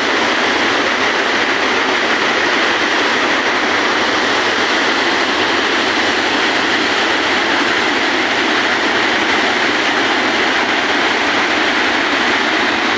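Flowing water: a steady, even rushing noise that holds constant throughout.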